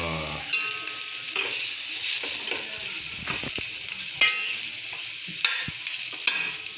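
Strips of meat sizzling as they fry in a pan, stirred and turned with a metal spoon that scrapes and clinks against the pan several times, the sharpest knock about four seconds in.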